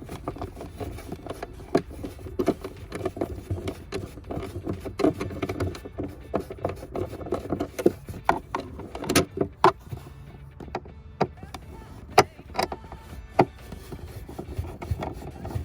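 Irregular clicks and knocks of a small screwdriver and hands working plastic trim covers and screws loose under a car's glove box, with a few sharper knocks standing out.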